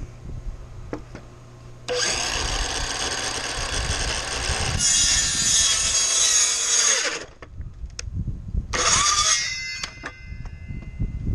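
Cordless circular saw starting up and cutting through a wooden board for about five seconds, the sound growing harsher as the blade works through the wood. A second short run follows near the end, the motor winding down afterwards with a falling whine.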